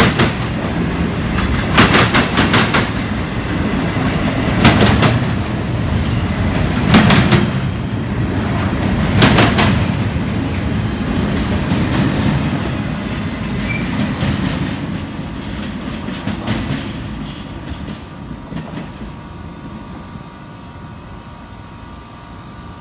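Double-stack container train rolling past, its wheels clicking over rail joints in pairs every two seconds or so over a steady rumble. It fades away in the last several seconds as the last cars pass and recede.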